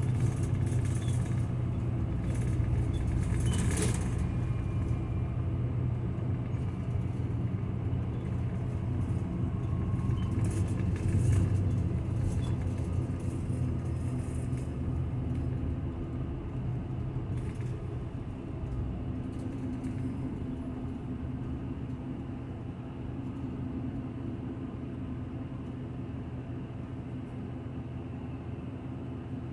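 Bus running, heard from inside the passenger cabin: a steady low rumble of engine and road noise. It grows gradually quieter through the second half, with a few faint clicks and rattles.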